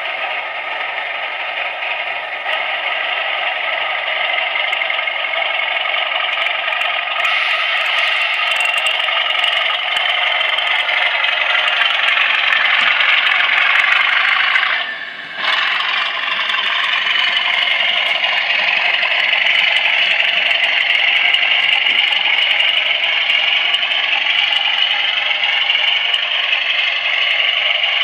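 Howes DCC sound decoder in a Bachmann OO-gauge Class 37 model, playing the English Electric diesel engine sound through the model's small speaker as the locomotive pulls away. The engine note climbs, drops briefly about halfway through, then builds again, with light clicks over it.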